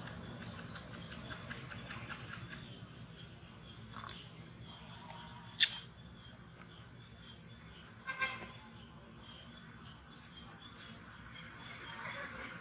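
Insects droning steadily in a high, even band, with one sharp click about halfway through and a fainter double click a couple of seconds later.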